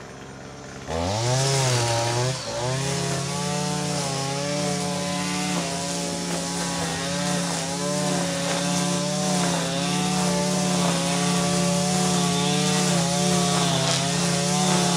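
Small petrol engine of a handheld lawn tool revving up from low speed about a second in, then running at high speed with a slightly wavering pitch.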